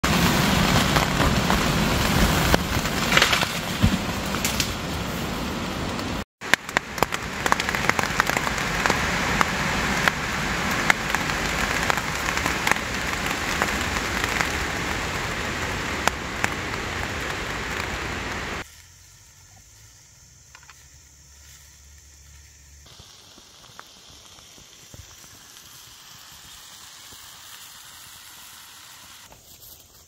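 Heavy rain falling with wind, a loud steady hiss full of sharp drop taps and crackles, broken by a brief cut about six seconds in. Just under two-thirds through it cuts suddenly to a much quieter, softer hush.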